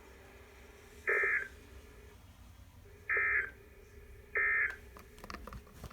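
Three short bursts of buzzy SAME digital data from a Midland WR120 NOAA weather radio's speaker, the Emergency Alert System end-of-message code that closes the weekly test. Each burst lasts under half a second; the first comes about a second in and the others follow at uneven gaps, over a faint steady hum.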